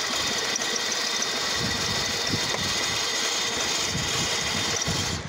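GM 3800 Series II V6 idling unevenly, with irregular low thuds: it is misfiring, with no spark at cylinders 2 and 5, whose ignition coils need replacing.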